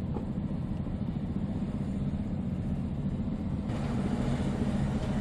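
Inside a car's cabin while driving slowly: a steady low rumble of engine and tyre noise, joined about two-thirds of the way in by a steady hiss.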